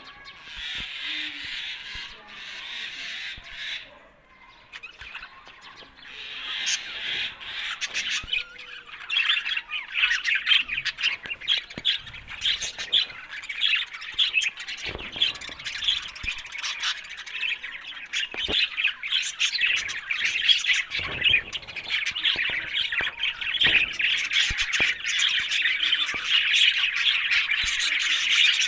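Budgerigars chattering and warbling in a dense run of quick, high chirps. A short burst at the start gives way to a brief lull, then continuous chatter takes over from about six seconds in.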